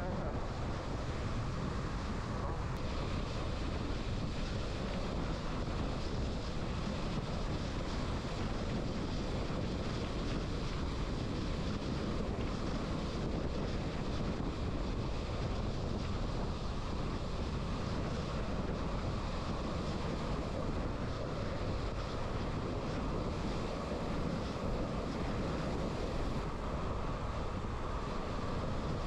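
Steady rushing hiss and rumble of a ski patrol rescue toboggan sliding over snow, with wind buffeting the microphone.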